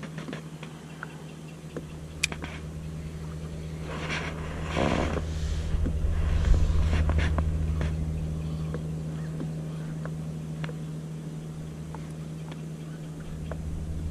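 Low steady hum of a boat motor running, swelling louder midway and again near the end, with a few light clicks and a brief rush of noise about five seconds in.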